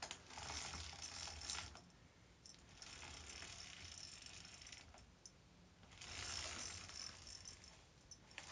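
Indoor roller blind being raised by its pull mechanism, rattling and clicking in three pulls of about two seconds each.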